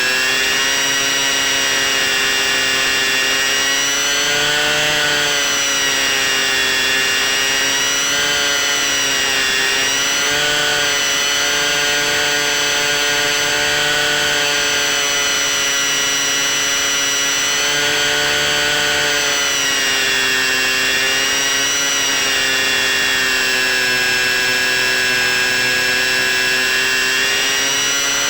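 Motor and propeller of a C1 Chaser RC plane whining steadily in flight, the pitch dipping and rising gently every few seconds as the throttle changes.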